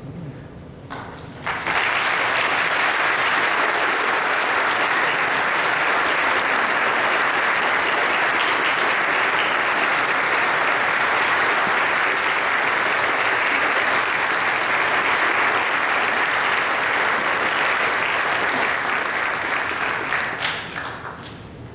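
Audience applauding at the end of a concert piece. The applause swells up about a second and a half in, holds steady, then dies away with a few last claps near the end.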